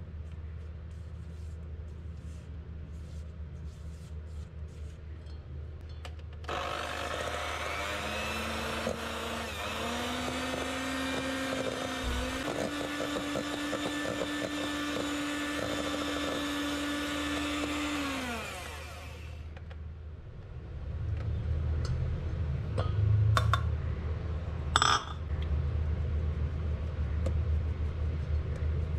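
Electric hand mixer running with its beaters in a stainless steel bowl of creamed butter. Its whine steps up in pitch twice as the speed is raised, then winds down and stops. Later there is a low rumble and a few sharp taps.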